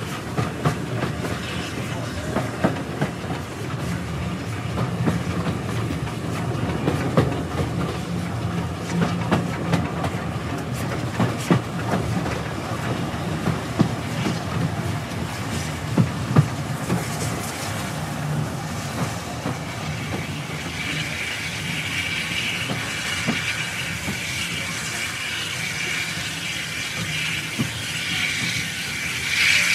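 Carriage behind a BR Standard Class 4 steam locomotive running along the track, heard from inside the front carriage: a steady low rumble with wheels clicking over the rail joints. About twenty seconds in, a high steady hiss joins and runs on.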